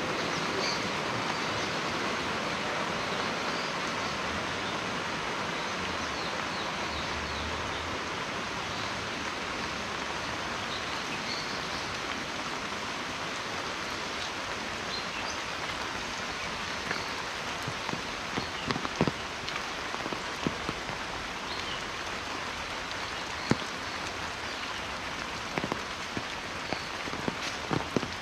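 Heavy monsoon rain falling steadily, with scattered sharp taps from close drops in the second half.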